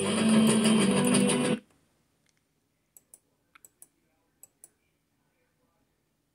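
Music cuts off abruptly about a second and a half in, leaving near silence broken by several short, faint clicks.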